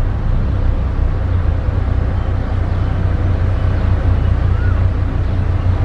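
Heavy diesel construction machine engine running steadily with a deep, even rumble. A faint short rising-and-falling whistle comes near the end.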